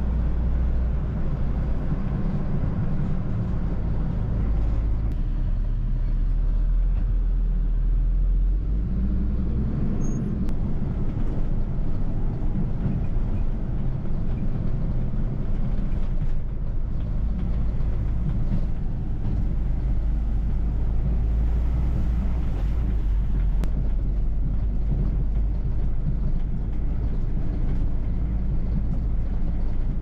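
Truck engine running with road and tyre noise, heard from inside the cab as it drives along a rough farm track; a steady low rumble.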